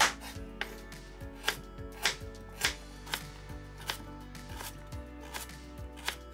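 Knife chopping food, with sharp strokes about two a second and the loudest one at the very start, over soft background music.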